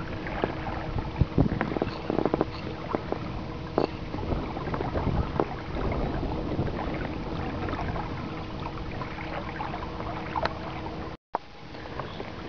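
Water splashing and lapping against the hull of a small inflatable boat under way, with wind on the microphone and a faint steady hum under it.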